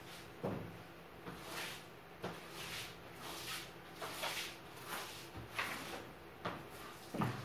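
Broom sweeping a hard floor in repeated hissing strokes, about one a second, mixed with short knocks as the broom and handle hit the floor and the bed frames.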